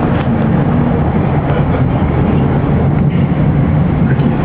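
Steady running noise of a passenger train, heard from inside the carriage, strongest in the low range.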